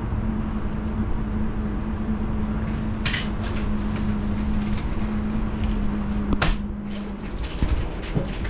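Steady mechanical hum over a low rumble, broken by a knock about three seconds in and a sharper click about six and a half seconds in; the hum's tone stops about seven seconds in.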